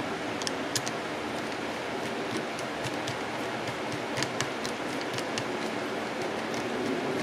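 Light, irregular metallic clicks of a screwdriver turning a long screw in the housing of a Singer 306K sewing-machine motor, over a steady hiss.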